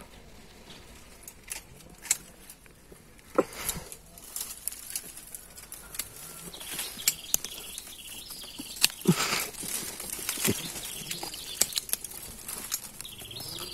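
Dry bamboo stems and brush rustling and crackling as someone pushes through a thicket, with irregular sharp snaps and clicks of twigs breaking and being clipped.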